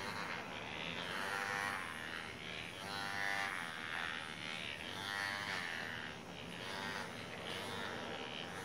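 Small battery-powered handheld massager buzzing as it is worked over a beagle's fur, its sound rising and falling every couple of seconds.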